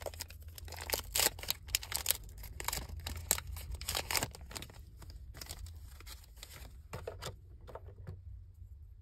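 Foil Pokémon booster pack torn open and crinkled as the cards are pulled out. The crackling is busiest for the first five seconds or so, then thins to a few light clicks near the end.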